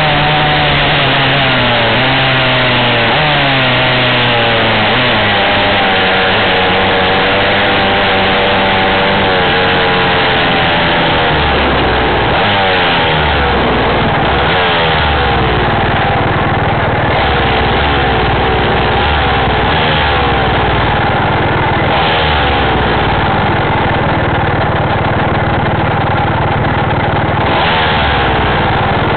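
Small engine running and revving up and down, pitch rising and falling repeatedly as the vehicle moves, recorded by a camera mounted on the vehicle, with wind rushing over the microphone.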